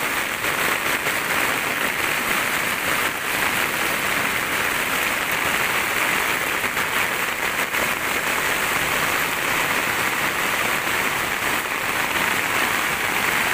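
Heavy rain pouring down steadily, with muddy floodwater rushing through an overflowing roadside drainage ditch.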